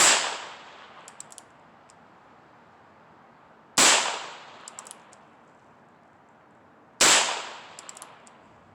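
Three .22 LR shots from a Heritage Rough Rider single-action revolver, about three and a half seconds apart, each with a short ringing tail. About a second after each shot come a few small clicks as the hammer is cocked.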